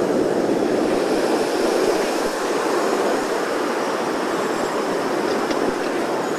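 A steady rushing noise, even and unbroken, with no rhythm or pitch.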